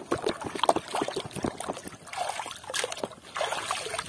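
Muddy water sloshing and splashing in a basin as a toy figure is swished and dunked through it, in a run of uneven splashes with trickling.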